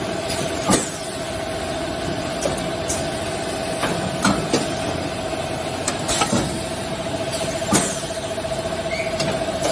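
Automatic wrapping machine running with a steady mid-pitched hum, broken by several sharp mechanical clacks at irregular intervals.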